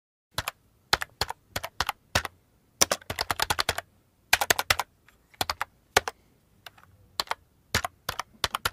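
A series of sharp, irregular clicks and taps, some single and some in quick runs of several a second.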